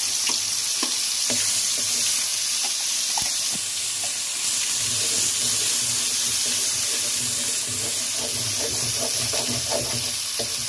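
Ground masala paste sizzling loudly and steadily in hot oil in a metal kadai, just poured in, with short clicks and scrapes of a metal spatula against the pan as it is stirred.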